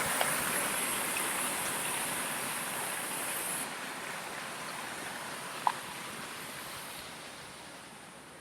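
Outdoor ambience: a steady rushing noise under a high insect buzz that drops away about a third of the way in, the whole slowly fading. A single short chirp sounds near the end.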